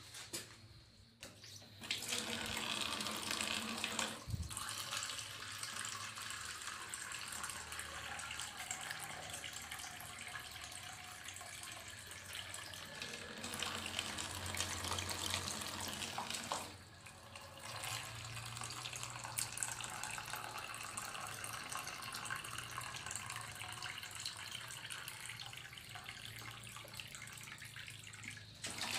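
Water running steadily from a tap and splashing into a plastic container and basin below. The flow starts about two seconds in and dips briefly a little past halfway.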